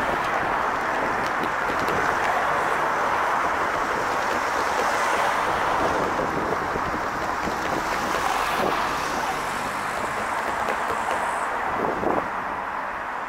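Class 50 diesel locomotive with its English Electric 16-cylinder engine working as it approaches, heard through steady wind noise on the microphone, with a brief bump near the end.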